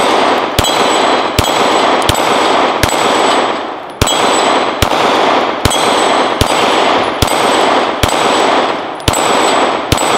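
9mm Glock 19 firing 147-grain HST +P in steady succession, about one shot every 0.8 s, around a dozen in all. Each shot is followed by the ring of a steel dueling-tree paddle being hit and flipped over.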